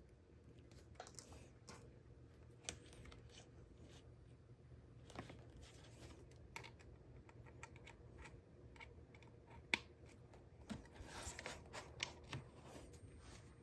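Faint handling noise of a thin plastic USB charging cable being unwound and handled: scattered light clicks and rustles, with one sharper click about ten seconds in and a busier patch of rustling and clicks near the end as a hand touches the lamp's plastic shade.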